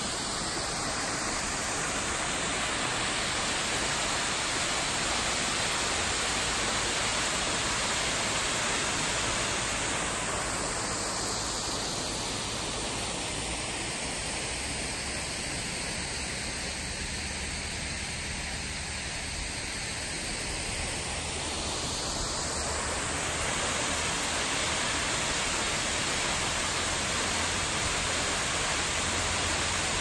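Steady rush of falling water, an even hiss. For several seconds in the middle its tone turns hollow, then it fills out again.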